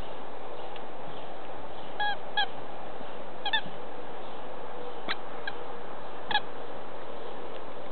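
Short, high-pitched animal calls, about seven of them, some in quick pairs, over a steady background hiss.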